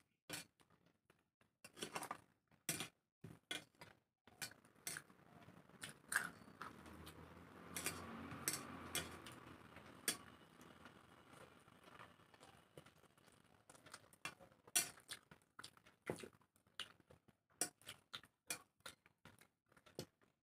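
Close-miked eating with the hands: fingers mixing rice against stainless steel plates and mouths chewing, heard as a string of faint, irregular clicks and ticks. A faint steady background noise rises and fades over several seconds in the middle.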